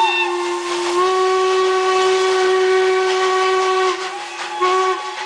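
Several steam locomotive whistles blowing at once in long held blasts of different pitches, shifting pitch slightly a couple of times, with a short final blast shortly before they cut off near the end.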